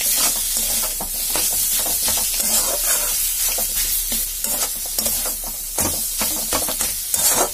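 Metal spatula stirring and scraping grated radish and peas around a kadai, with irregular scrapes against the pan over a steady sizzle of the mix frying in oil.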